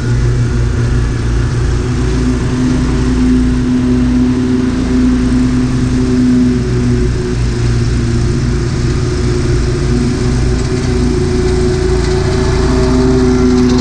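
Lawn mower engine running steadily at a constant speed, a loud, even drone with no change in pitch.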